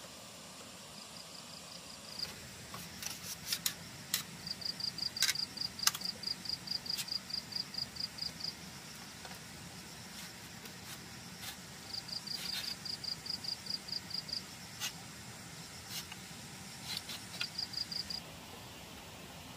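Insect chirping in runs of rapid, evenly spaced pulses at a steady high pitch, about five a second, starting and stopping several times. Scattered sharp clicks or knocks sound between the chirps.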